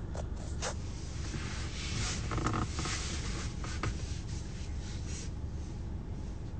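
Steady low rumble of a car cabin with the engine running, with rustling and small clicks from the phone being handled. A brief muffled voice sound comes about two and a half seconds in.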